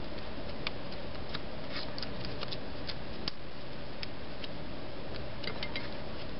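Scattered light clicks and ticks of fingers peeling the paper backing off small adhesive foam dots, over a steady background hiss.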